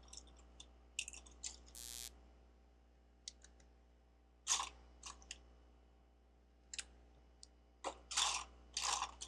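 Plastic Lego bricks clicking and clattering as they are picked up and handled, in scattered short clicks. There is a brief rustle about two seconds in and a cluster of louder clatters near the end.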